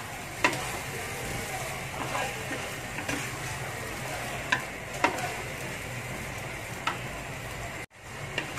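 Prawns, fish cake and beef frying in chilli sambal in a wok, sizzling steadily while a wooden spatula stirs, with several sharp knocks and scrapes of the spatula against the pan. The sound cuts out for an instant near the end.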